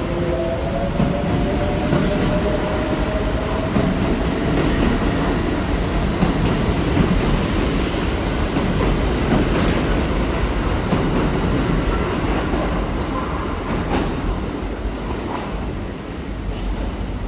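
Kintetsu electric train running along an underground platform, its traction motor whine rising slowly as it picks up speed over a steady rumble of wheels on rail. The sound eases off near the end as the train draws away.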